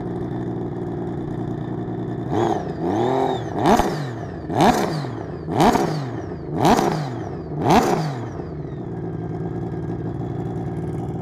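Sea-Doo RXT personal watercraft engine idling, then revved in quick throttle blips about a second apart, about six in all, each rising and falling in pitch, before settling back to a steady idle.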